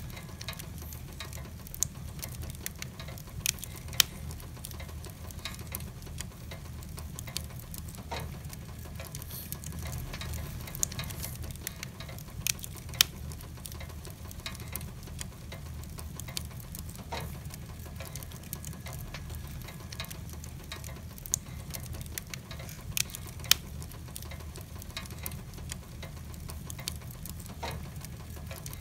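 Wood fire burning in a fireplace, crackling with irregular sharp pops, a few of them much louder, over a steady low rumble.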